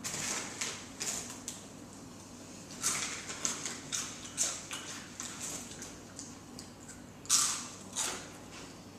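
Close-up eating sounds from someone chewing pizza: an irregular run of short, sharp mouth clicks and smacks, with the loudest pair about seven and eight seconds in.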